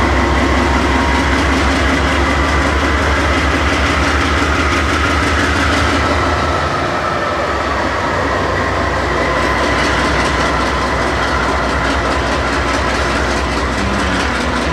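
Freight train moving on the rails: a loud, steady rumble of wheels and cars with faint steady high tones over it, easing slightly about six seconds in.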